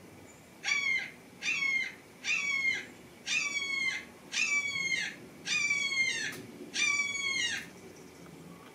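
A cat meowing insistently, seven calls in a row about once a second, each call falling slightly in pitch.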